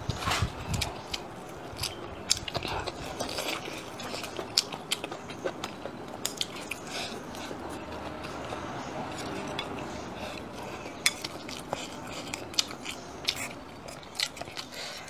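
Close-miked chewing of rice and stir-fried green peppers, full of quick wet mouth clicks, with chopsticks tapping against the ceramic bowl.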